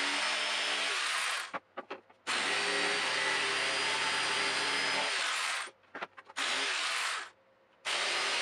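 Electric jigsaw cutting marine-grade plywood, run in bursts: it stops about a second and a half in, runs again for about three seconds, stops, runs briefly, pauses, and starts again near the end. A few short blips of the motor fall in the pauses.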